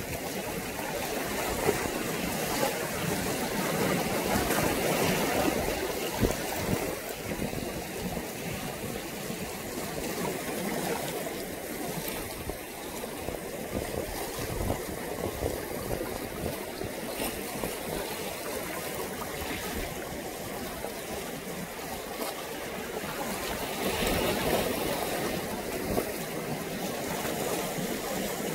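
Choppy sea water washing and lapping, a steady noise that swells and eases a little.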